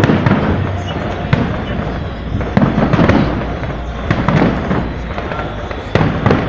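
Fireworks display going off: a continuous crackle with loud bangs every second or so.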